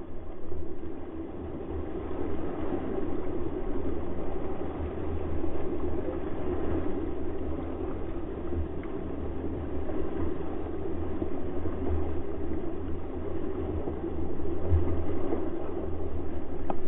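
Wind buffeting the camera microphone over the rush and splash of water as a heeled sailing yacht's hull drives through choppy sea, throwing up spray; the noise swells and eases with the waves.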